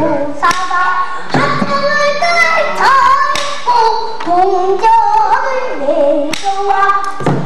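A child singing pansori solo in a strained, ornamented voice, holding wavering notes with glides and bends between them. A few sharp drum strokes, the buk barrel-drum accompaniment, cut in, one shortly after the start and two more near the end.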